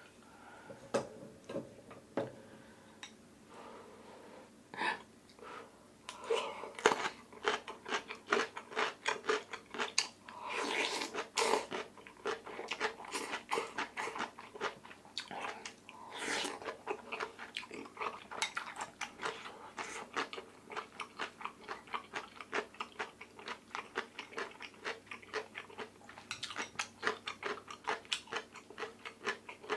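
Close-miked chewing of crunchy radish kimchi: after a few quiet seconds, a steady run of wet crunches, about two to three a second.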